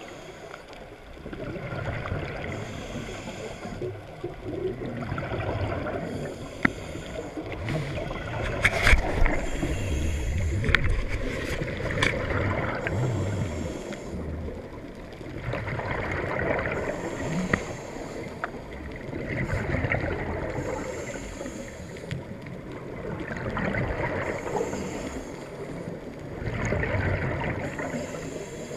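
Scuba regulator breathing heard underwater: a hiss on each inhale alternating with a low rush of exhaled bubbles, in a slow cycle about every three to four seconds. A cluster of sharp clicks and knocks comes about a third of the way in.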